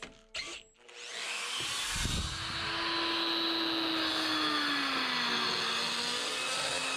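Handheld rotary power tool starting up about a second and a half in and running steadily against the inside of a stainless steel exhaust tube, a high hiss over a motor tone that sags slightly in pitch partway through as it bears on the metal.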